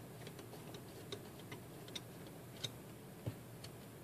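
Faint, irregular small metallic clicks as a screwdriver turns screws out of an aluminium instrument case, about half a dozen ticks spread over a few seconds.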